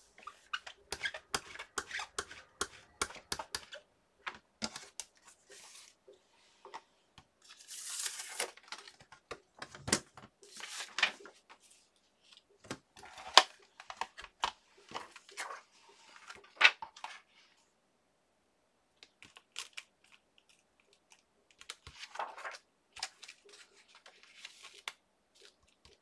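Paper being handled, rustling and crinkling in short bursts, among many small clicks and taps on a desk; the louder rustles come about eight, eleven and twenty-two seconds in.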